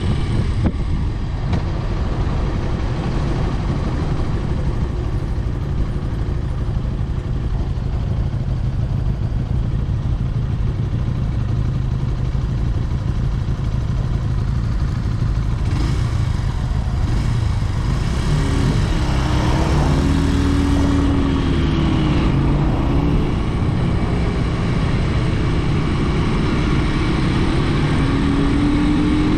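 Brixton motorcycle's engine running while riding. About two-thirds through, the engine note rises and falls, and near the end it climbs again as the bike accelerates.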